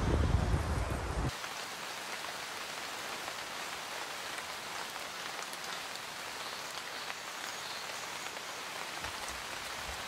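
Just over a second of low rumble cuts off abruptly, giving way to steady pouring rain: an even hiss with scattered patter of drops.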